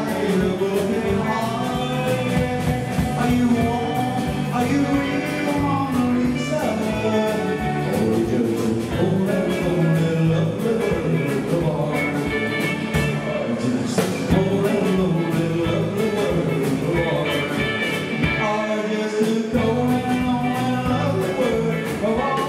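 Live rock and roll band playing: electric guitars over a drum kit keeping a steady beat.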